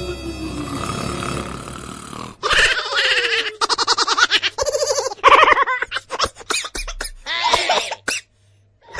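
A slow falling tone, then a person laughing in quick bursts for several seconds, stopping shortly before the end.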